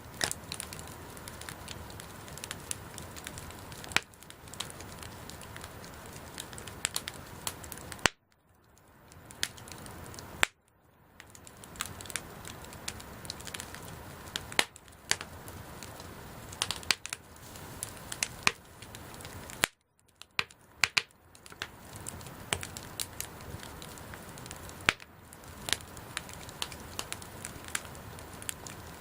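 Wood campfire crackling: a steady hiss of burning with frequent sharp pops and snaps from the burning wood. The sound drops out briefly twice, once for about two seconds.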